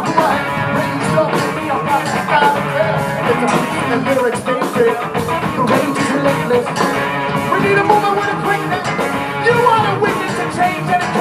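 Rock band playing live, with a steady drum beat and singing.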